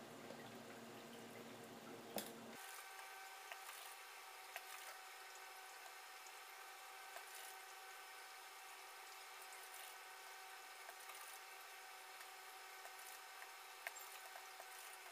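Near silence: faint steady hiss of room tone with a few soft, scattered clicks.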